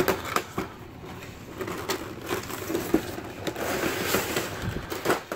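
Cardboard box and plastic packaging being handled: a box lid sliding off, with rustling and irregular clicks and scrapes of card and clear plastic blister trays.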